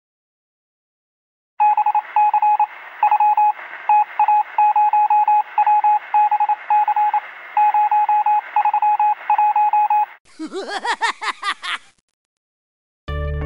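Electronic beep sound effect: a single-pitched tone beeping in an irregular run of short and long beeps for several seconds, then a brief burst of warbling, sweeping tones. Music starts near the end.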